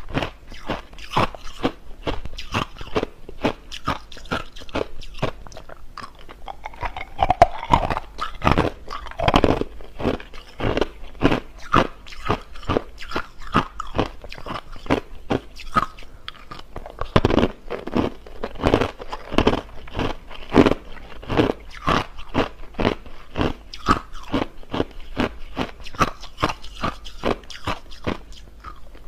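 A person biting and chewing hard crushed ice close to the microphone: a continuous run of sharp, loud crunches, several a second.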